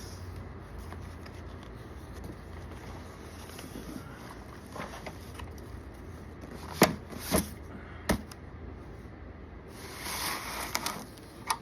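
Cardboard box being handled and opened: a few sharp clicks and knocks around the middle, then a brief rustle near the end.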